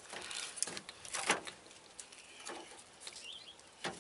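Thin sheet metal being handled and bent by hand: scattered light clicks, ticks and crinkles from a galvanized 6-inch start collar and the panel's torn metal edge, the sharpest tick just over a second in. A faint bird chirp is heard near the end.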